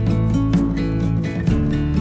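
Background music.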